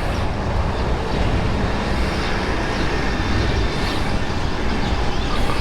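Steady outdoor background noise: a continuous low rumble with hiss on top, unbroken and without distinct events.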